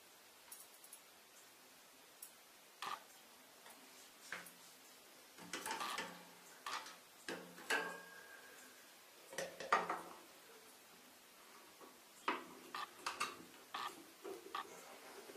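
Irregular clicks, clinks and scrapes of metal tweezers against a small clear plastic enclosure as it is opened and handled, with a few quick clusters of knocks and one short squeak about halfway.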